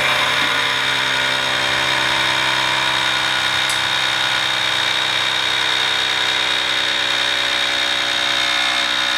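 Small electric air compressor of a Legend Air-A air-suspension kit running with a steady, even hum, pumping air into the motorcycle's rear air monoshock to raise it.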